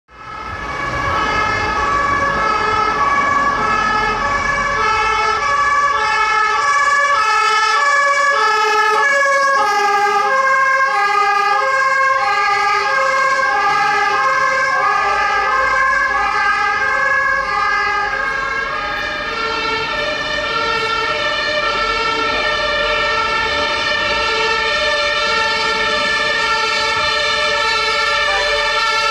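German two-tone fire engine siren (Martinshorn), switching back and forth between a low and a high tone, each held a little under a second. About two-thirds of the way in, the tones smear and shift in pitch.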